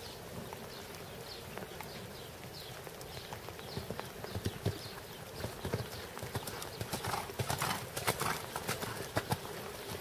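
Hoofbeats of a grey showjumping gelding cantering on a sand arena, growing louder and sharper from about four seconds in.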